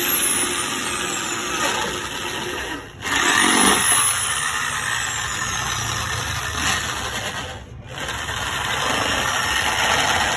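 Handheld electric drill running, boring holes through a plastic motorcycle visor; the motor sound dips briefly twice, about three seconds in and again near eight seconds.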